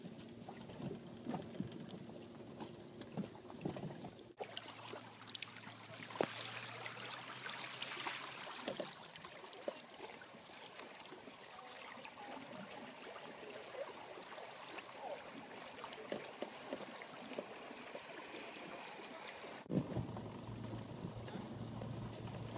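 Water trickling and splashing along the hull of a Hobie Adventure Island sailing kayak trimaran moving slowly in light wind, with small knocks. The sound changes abruptly about four seconds in and again near the end.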